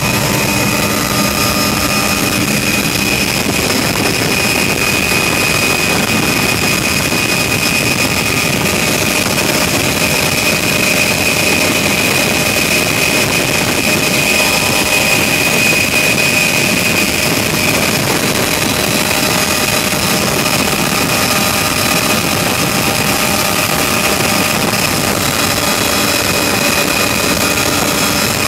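Helicopter turbine engine and rotors running steadily in flight, heard from inside the cabin with the door open: a constant loud rush with a steady high-pitched whine over it.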